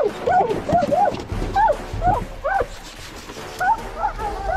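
Bear hounds barking and bawling in quick, rising-and-falling yelps, several dogs overlapping, excited as the dog box is opened to turn them loose on a bear chase.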